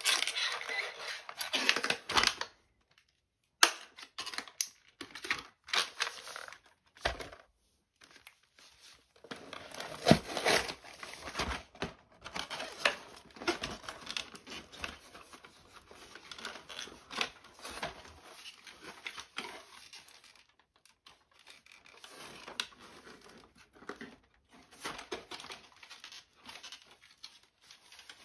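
Toy packaging being handled: clear plastic bags crinkling and cardboard tearing and rustling in irregular bursts, with sharp clicks, as a toy car and its parts are pulled from the box. The rustling stops briefly about three seconds in.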